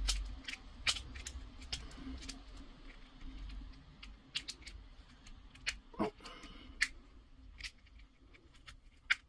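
Utility knife blade cutting and scraping away a notch on the plastic housing of a Parkside X12V battery pack: a run of irregular short, sharp clicks and scrapes.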